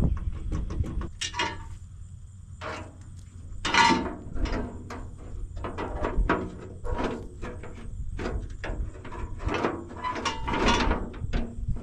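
Hand tools working on metal: a string of irregular clicks and knocks, with a few louder clanks that ring briefly, about 4 and 10 seconds in.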